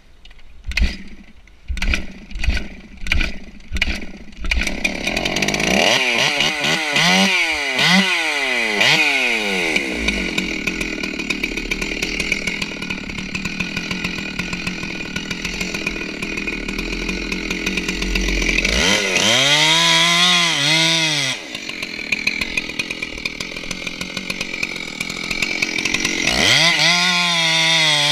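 A few thumps, then a Stihl 064 chainsaw opening up. It revs up and down several times, then runs steadily under load as it cuts into a redwood trunk. There are further throttle blips about two-thirds of the way through and again near the end.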